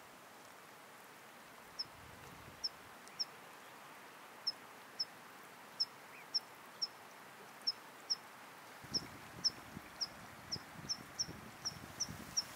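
Alpine meadow ambience: short, high chirps repeat over a faint steady hiss of running water. The chirps come irregularly at first, then quicken to about two a second. From about nine seconds in, low gusty rumbles of wind on the microphone join in.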